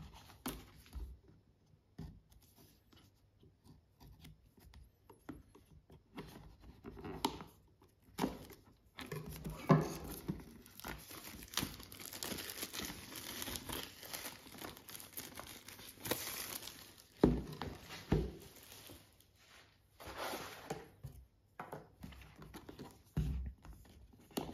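Clear plastic shrink wrap being peeled and torn off a tablet's cardboard box, with scattered crackles at first, then steady crinkling for about twelve seconds in the middle. A few sharp knocks stand out within the crinkling.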